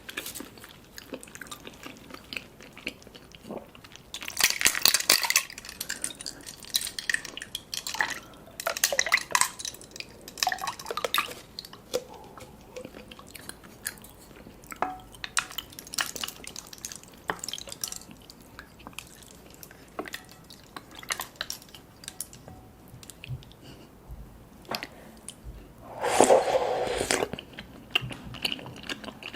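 Close-up mouth sounds of someone drinking boba milk tea: wet chewing and smacking on sticky, chewy tapioca pearls, broken by loud slurps through a straw, one about four seconds in, several more around eight to eleven seconds, and a strong one near the end.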